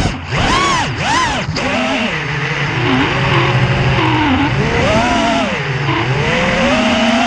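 FPV quadcopter's brushless motors whining in 3D flight, their pitch swooping up and down fast in the first second or two as the throttle is punched and flipped, wavering, then climbing steadily near the end.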